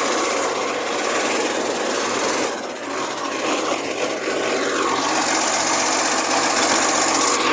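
Side-loader garbage truck running, its engine and hydraulics giving a continuous dense noise with a faint steady whine.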